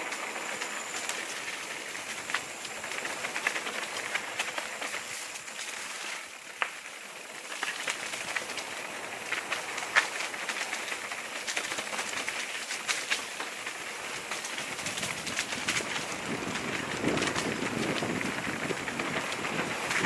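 Mountain bike rolling along a dirt singletrack: tyres crunching over dry leaves and hard-packed earth, with frequent sharp clicks and knocks from the bike rattling over bumps. A lower rushing grows louder in the last few seconds.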